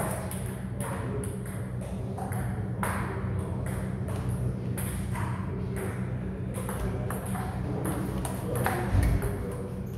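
Table tennis ball clicking back and forth off bats and table in a rally, about two or three sharp knocks a second, over a steady low hum of the hall. A louder low thump comes about nine seconds in.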